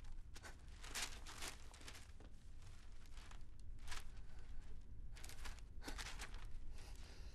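Paper being handled: sheets and notebook pages shuffled and flipped, in a series of short crinkly rustles.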